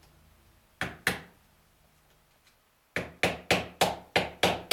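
Small hammer striking metal on the head of an old PMZ-1A cast-iron sewing machine, knocking at a non-original bushing. Two blows about a second in, then a quick run of about seven sharp blows, roughly four a second, from about three seconds in.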